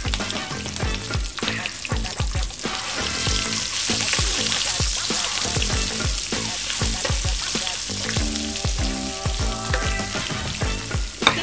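Ground spice paste of garlic, shallots, lemongrass, chilli and turmeric sizzling in oil in a wok over low heat while a metal spatula stirs it. The sizzle grows stronger about two seconds in, and there is a sharp tap of the spatula near the end.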